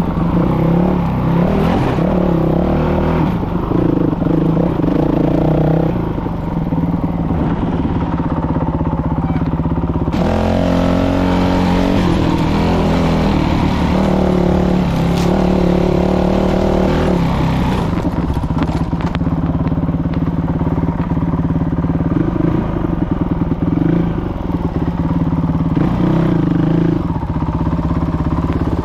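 2019 Honda CRF450L's single-cylinder four-stroke engine running as the dirt bike is ridden along a rough trail, its note shifting with the throttle every second or two.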